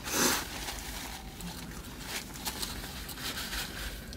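Takeout food packaging being handled: a short, loud rustle near the start, then softer rustling and small clicks.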